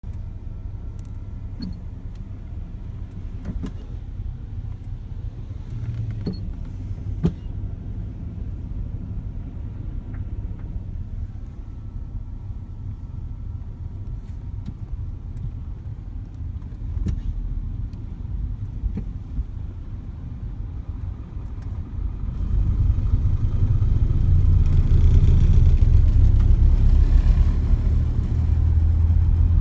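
Low rumble of a vehicle driving, heard from inside its cabin, with a few light clicks in the first several seconds. The rumble gets clearly louder about two-thirds of the way through.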